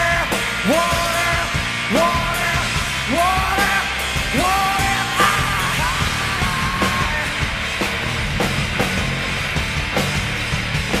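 Rock band playing loudly with drums, while a voice slides up into held, yelled notes several times over the first seven seconds or so; after that the band plays on without them.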